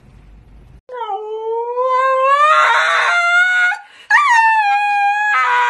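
Husky howling: two long howls starting about a second in, the first rising slowly in pitch, the second opening with a quick upward swoop and then held, growing rougher near the end.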